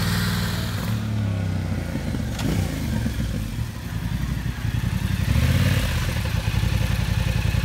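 Yamaha Ténéré 700's 689 cc parallel-twin engine revving as the motorcycle pulls away on a short ride and comes back. The engine note eases off in the middle and rises again about five seconds in.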